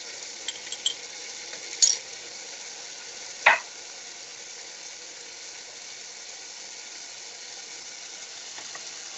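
Diced tomato and capsicum frying in oil in a pan, a steady sizzle. A few light clinks of the metal spoon come in the first two seconds, and a sharper knock about three and a half seconds in.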